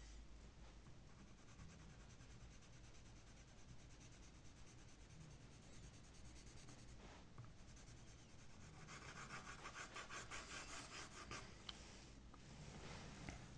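Graphite pencil rubbing and scratching faintly on paper in quick back-and-forth shading strokes, louder and faster for a couple of seconds past the middle.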